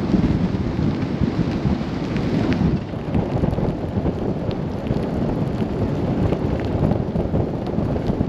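Steady rumble and wind buffeting from a vehicle driving on a snow-covered road.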